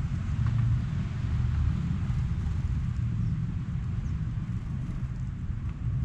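Steady low rumble of road traffic, with a few faint high bird chirps over it.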